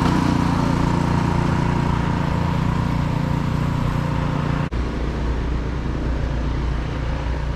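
An engine running steadily. About four and a half seconds in, it cuts off abruptly and a deeper, steady rumble takes over.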